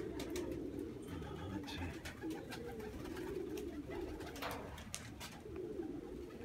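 Domestic pigeons cooing, several birds overlapping in a steady low warble, with faint scattered clicks.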